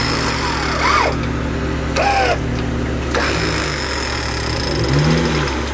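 Electric winch motor running under load, reeling in its line to pull an off-road Jeep through deep mud, with the Jeep's engine running underneath.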